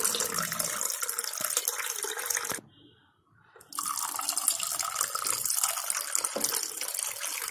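Cold water poured in a steady splashing stream into a glass over ice cubes and mango concentrate. The pour breaks off for about a second before the middle, then starts again as a second glass is filled.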